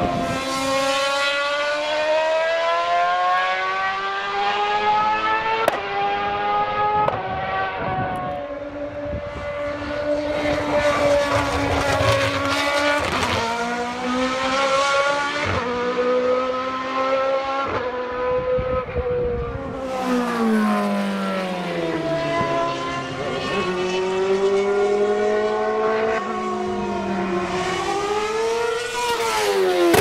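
Formula 1 race car engine running at high revs, climbing in pitch through several quick upshifts. About two-thirds of the way through, the revs fall as the car brakes and downshifts for a corner, then they climb hard again out of it.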